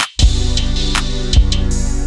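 Background music with a steady drum beat and held bass notes, briefly cutting out just after the start.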